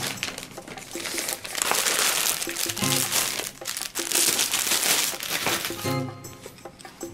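Thin plastic mail bag and the plastic-wrapped T-shirt inside crinkling as they are handled, densest from about a second in until near the end, over background music.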